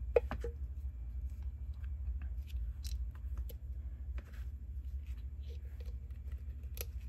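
Small resin 3D-printed figure parts and metal tweezers being handled and fitted together: scattered light clicks and taps, the sharpest just after the start, over a steady low hum.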